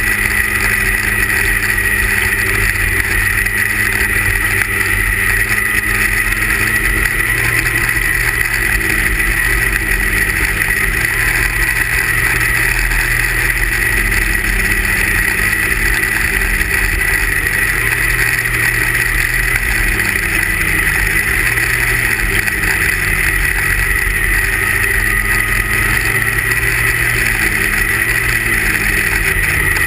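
A racing snowmobile's 340 cc two-stroke engine running hard at high revs throughout. From about a quarter of the way in, its pitch dips and recovers every couple of seconds as the throttle eases and opens again.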